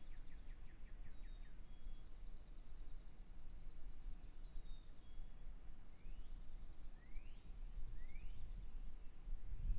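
Birds chirping: long, fast, high-pitched trills that repeat, with three short rising calls about a second apart near the end, over a low steady background rumble.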